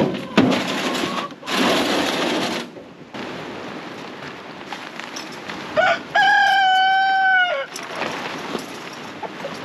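A rooster crowing once: one long, steady call about six seconds in that drops away at the end. Before it come two loud bursts of rushing noise.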